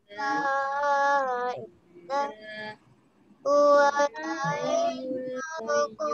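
A child's voice singing a slow melody in long held notes, in two phrases with a short break about halfway through.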